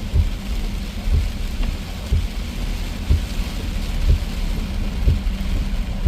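Heavy rain coming down hard on a moving car: a steady hiss of rain over the low rumble of the car on the wet road, with irregular dull thumps.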